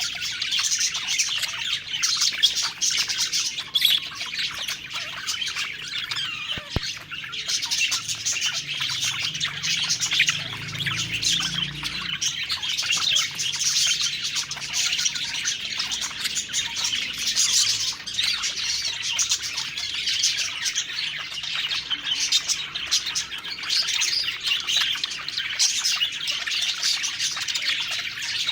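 A flock of budgerigars (budgies) chattering and warbling nonstop, with many quick, overlapping chirps and an occasional squawk.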